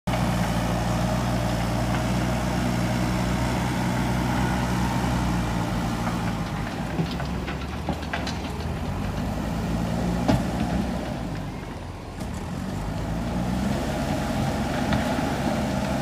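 JCB backhoe loader's diesel engine running under load as the front bucket pushes soil, with a few sharp knocks in the middle; the engine eases off about two-thirds of the way through, then picks up again.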